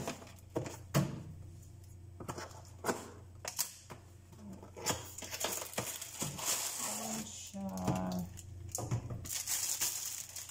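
A cardboard box being handled and opened, with sharp taps, knocks and scrapes of the cardboard, then the crinkling of a plastic bag as the back support is pulled out near the end.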